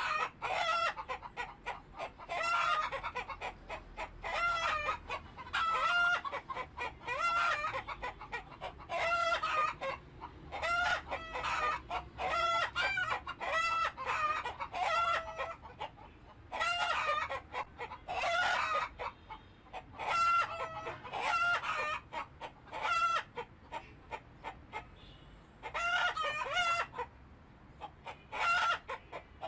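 Chickens clucking and crowing, a string of short pitched calls one after another with brief gaps.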